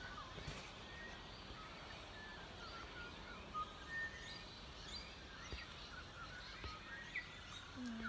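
Dawn chorus of several birds giving short, scattered chirps and calls, faint over a steady background hiss.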